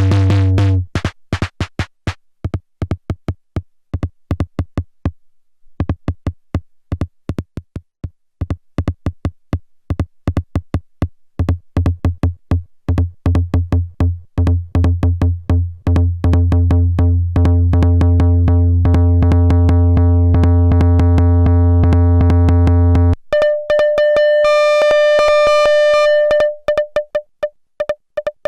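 Erica Synths Perkons HD-01 drum synthesizer playing a fast electronic pattern of rapid repeated hits. A deep bass tone drops out about a second in and returns about halfway through with pitched tones layered over it. Near the end it switches to a high, ringing pitched hit repeating quickly.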